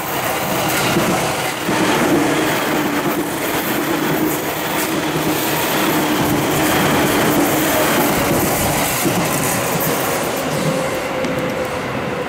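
Seibu 2000 series electric commuter train passing close by: a steady rumble of steel wheels on the rails with a humming motor tone, easing off a little near the end.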